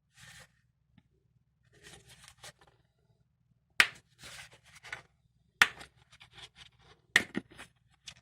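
Hands handling a knife's presentation box and packaging: soft rustling and scraping, broken by several sharp clicks, the first close to four seconds in and two in quick succession near the end.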